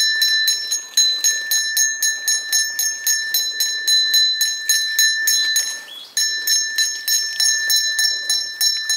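Puja hand bell rung steadily, about four strokes a second, with a short break about six seconds in.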